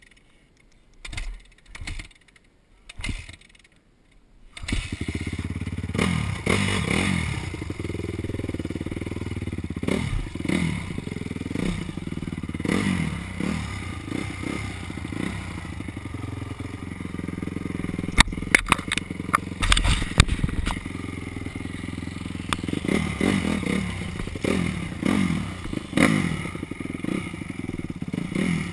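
Honda dirt bike engine: a few short low thumps, then the engine starts about four to five seconds in and is ridden, revving up and down over and over. Clatter and sharp knocks from the bike on rough ground, a cluster of them loudest past the middle.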